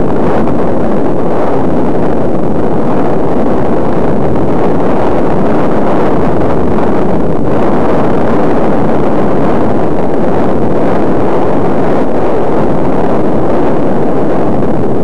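Wind rushing over the microphone of a glasses-mounted camera on a moving bicycle: a loud, steady roar of noise without letup.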